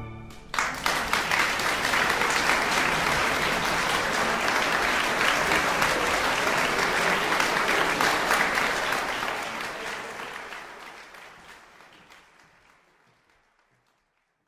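Audience applauding, breaking out about half a second in, holding steady, then fading away over the last few seconds.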